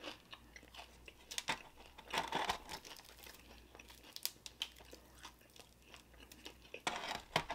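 Close-miked fingers tearing a fried chicken wing apart: soft, scattered tearing and crinkling, with louder clusters about two seconds in and again near the end.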